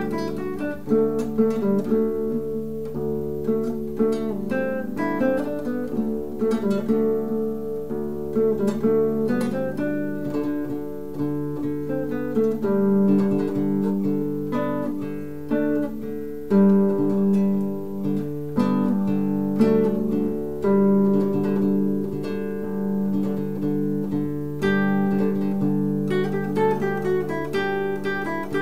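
Solo classical guitar played fingerstyle: a continuous piece of plucked melody notes over held bass notes.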